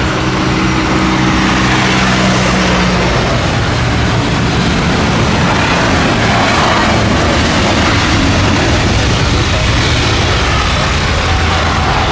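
Jet airliner's engines at takeoff thrust, a loud steady rush of noise as the aircraft rolls and climbs out. A few low engine tones sit in it for the first few seconds and then fade.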